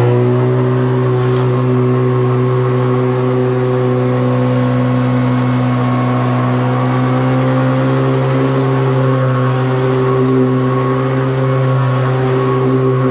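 Hoover commercial upright vacuum cleaner running steadily at full speed just after being switched on: a loud, even motor hum with a stack of overtones.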